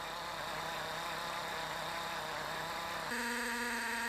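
Portable valve grinding machine's drive motor running steadily as it grinds a valve seat, a steady mechanical hum. About three seconds in the hum changes to a steadier, higher tone.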